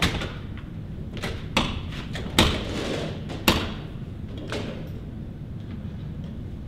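A glass exit door's push bar being shoved and the door jolting in its frame: about five sharp clunks and thuds, the loudest in the first few seconds, over a low steady hum.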